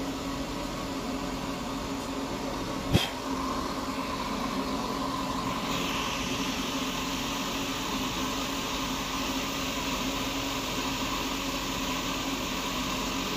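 Steady machine hum, like a fan running, with one sharp click about three seconds in.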